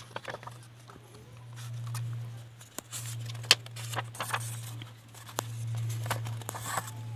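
Paper handling: a cheque book's envelope and pages being slid and flipped, with scattered short rustles and sharp clicks, the sharpest about halfway through. A steady low hum runs underneath.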